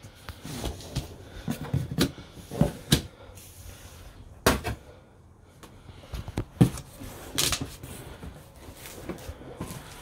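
Irregular knocks and clicks of objects being handled and set down, about a dozen scattered strikes with the loudest about four and a half seconds in.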